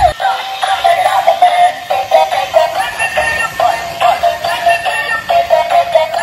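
Battery-operated dancing robot toy playing an electronic song with a synthesized singing voice through its small built-in speaker, thin and without bass.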